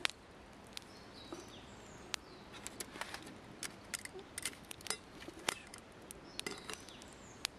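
Small wood fire crackling in a camp firebox stove, with irregular sharp ticks and pops. Birds chirp faintly twice.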